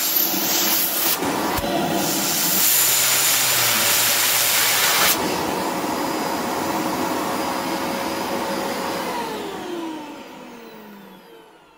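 Electrolux Supercyclone 2100 W vacuum cleaner running at full power with a loud rush of air. About five seconds in the rush drops sharply. About nine seconds in the motor is switched off and winds down with a falling whine that fades out.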